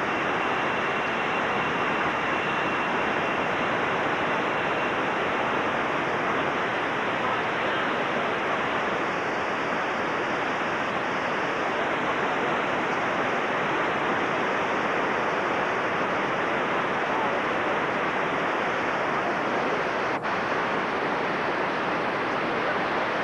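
Whitewater rapids rushing: a steady, loud wash of churning river water.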